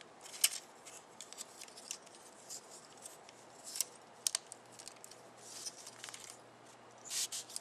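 Hands handling a plastic Transformers toy: scattered small clicks and scrapes of plastic parts as the wings are unfolded and moved into place, with a short cluster of clicks near the end.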